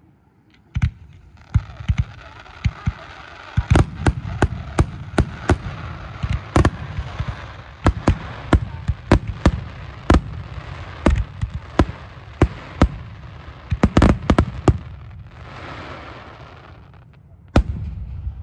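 Aerial fireworks shells bursting in rapid succession, dozens of sharp bangs over a steady crackling hiss, after a short lull at the start. Near the end the bangs stop for a rushing hiss that swells and fades, then one last loud bang.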